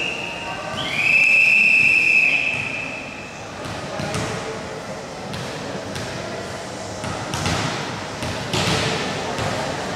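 A referee's whistle blown in one long, steady blast of about a second and a half, starting just under a second in, over voices echoing in the gym. After it come a few thuds.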